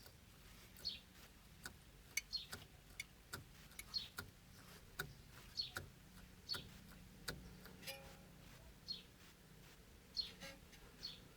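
Knocking in a Toyota Corolla E120's steering rack: sharp, irregular clicks roughly one or two a second, some with a short high squeak, the sign of play or wear in the rack.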